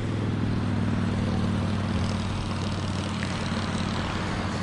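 Several small go-kart engines idling together in a steady drone while the karts sit stopped.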